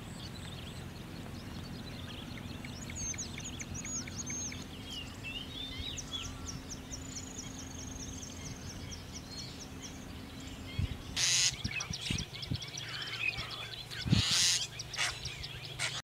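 Several wetland birds calling together: chirps, trills and runs of repeated high notes over a steady low hum. Two short bursts of rushing noise come in near the end.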